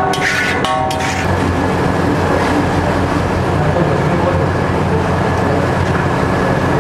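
Metal spatula clanging against a street vendor's iron griddle twice in the first second, with a ringing tone after each strike. Then a steady din of street noise with a low hum.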